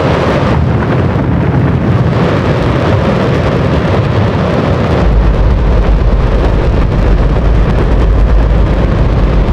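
Hydrogen-oxygen rocket engine test-firing on a test stand: a loud, steady roar. A much deeper rumble joins about five seconds in.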